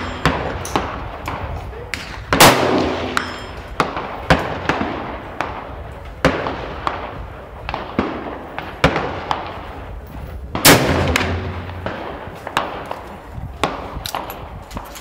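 Two loud shots from a Martini-Henry rifle firing black-powder cartridges, about eight seconds apart, each trailing off in echo. Fainter shots from other guns on the range crack throughout.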